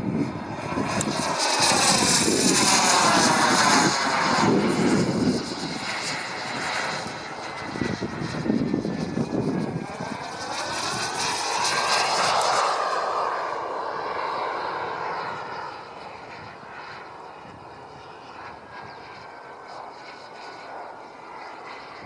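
Radio-controlled model jet flying past twice, a loud high-pitched rush that swells and sweeps in pitch with each pass, then fades to a distant hum in the second half.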